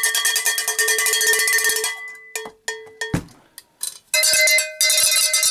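Cowbell struck in a rapid, steady rhythm, with a break of a few scattered strikes and a low thud in the middle. It then resumes a little higher in pitch about four seconds in.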